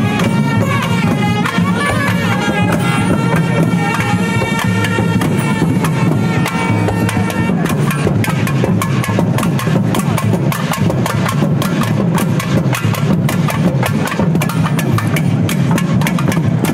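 Tamil temple procession music: nadaswaram double-reed pipes playing a reedy, bending melody over thavil barrel drums. About halfway through, the drumming grows dense and fast.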